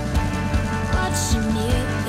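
Background music with a steady drum beat and a held melody.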